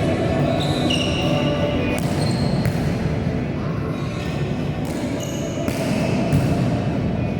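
Indoor volleyball play on a gym court: sneakers squeak in short bursts on the floor and the ball is struck a few times, over a steady background of hall noise.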